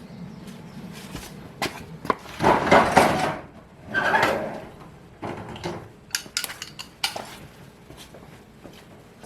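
Metal hand tools, a socket and breaker bar, clinking and scraping on a mower's blade bolts and deck. Scattered sharp clicks, two louder rasping bursts a few seconds in, then more light clinks.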